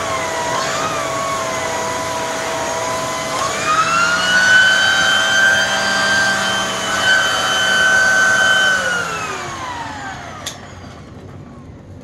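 LG Kompressor upright vacuum running with its hand turbo tool on the hose: a steady motor whine that rises in pitch about three seconds in and holds. Near the end the whine falls in pitch and dies away as the motor winds down, followed by a single click.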